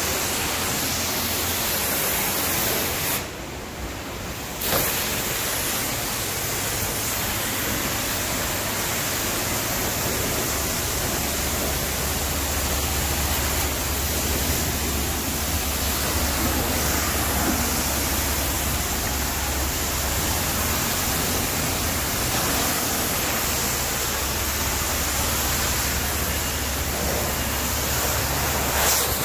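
Self-serve car wash high-pressure spray wand blasting water onto a car: a steady hiss of spray, broken briefly about three seconds in.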